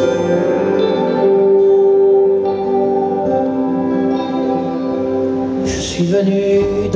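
Live band music with long held notes from acoustic guitar, cello and electric guitar, and a sharp crash about six seconds in.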